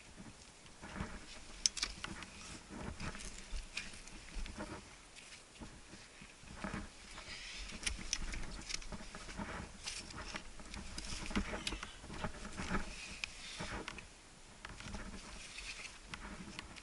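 Irregular scrapes and taps from a climber moving up a granite hand-and-fist crack: crack-gloved hands jamming and shoes rubbing on the rock.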